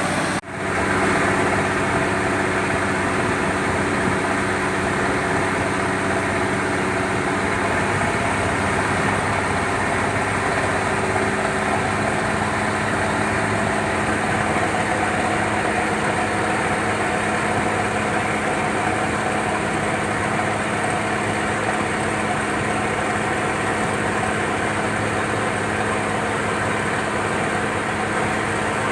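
A boat's turbocharged truck engine running steadily at constant speed, its even engine tone holding throughout, with a momentary break in the sound about half a second in.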